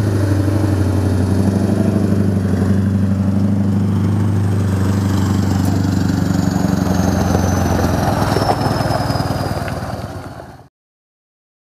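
Scania R620's 16-litre V8 diesel engine running steadily through loud exhaust pipes, a deep even drone. It fades out about ten seconds in.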